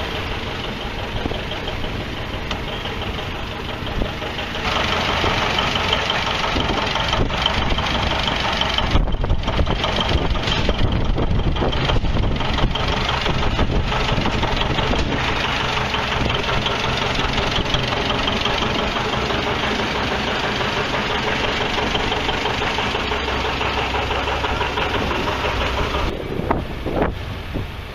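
Tractor engine running steadily, louder from about five seconds in until it drops back near the end.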